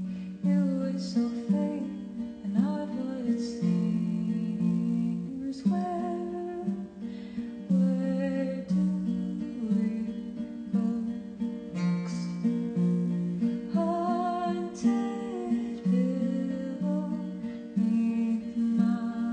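Acoustic guitar playing the song's chords, with a voice singing over it.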